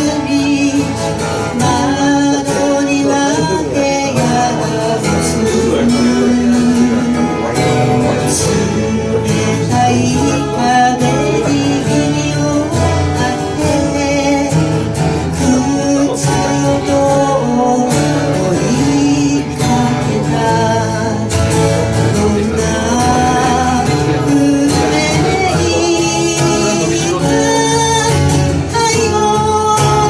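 A woman singing a slow song live into a microphone, accompanied by a strummed acoustic guitar.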